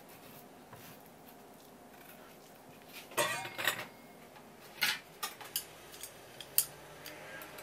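A wooden-paddle sharkskin wasabi grater knocking and scraping on a wooden cutting board as it is handled and set down. There is a quick cluster of clatter about three seconds in, another knock about five seconds in, then a few single sharp taps.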